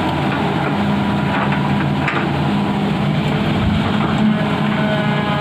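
Hitachi hydraulic excavator's diesel engine running steadily under work, with a few short knocks and clatters over it.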